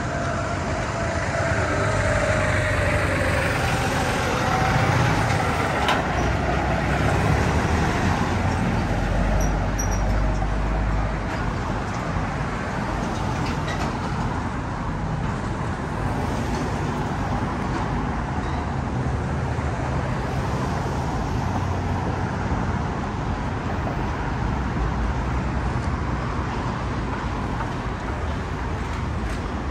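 City street traffic, with cars and a heavy vehicle passing close by. A deep rumble is strongest in the first ten seconds or so, and a whine falls in pitch near the start.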